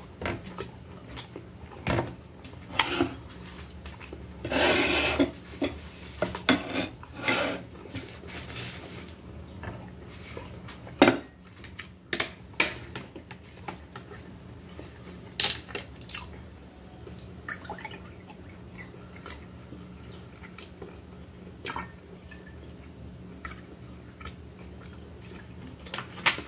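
Close-up eating sounds: chewing on a toasted sandwich, with scattered clicks and knocks from a plastic juice bottle and plate being handled. Near the end, orange juice is poured from the bottle into a glass. A low steady hum sits under it all.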